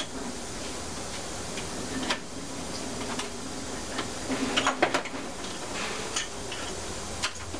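Light metallic clicks and clinks of two-stroke V6 outboard crankshaft parts, bearings and seal rings, being handled on a steel crankshaft, with a quick flurry of clinks about halfway through, over a steady hiss.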